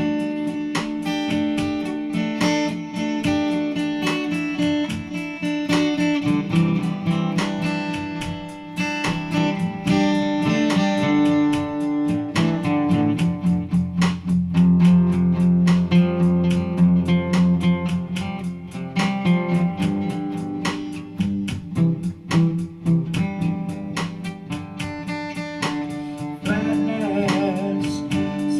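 Guitar playing an instrumental break: strummed and picked chords in a steady rhythm. A wavering, bending tone comes in near the end.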